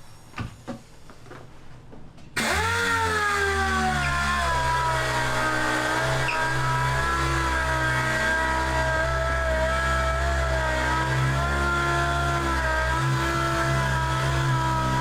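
A few faint knocks of handling, then a power sander starts abruptly about two seconds in and runs steadily on the scratched aquarium panel, its pitch dropping at first as it bites and then holding.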